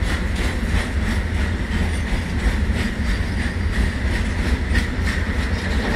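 Freight train of BTPN oil tank wagons rolling past, with a steady low rumble and irregular clicks as the wheels pass over rail joints.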